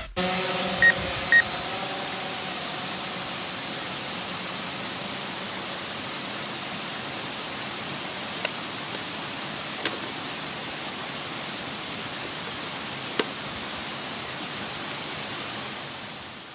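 Waterfall: a steady rush of falling water with no distinct pitch, with two short high chirps about a second in and a few faint clicks, fading out at the end.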